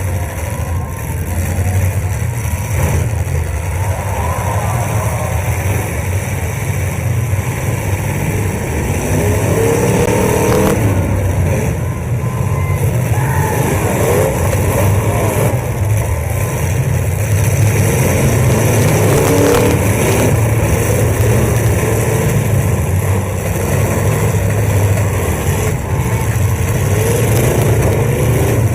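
Several demolition derby cars' engines running together, a steady low rumble with engines revving up and down over and over.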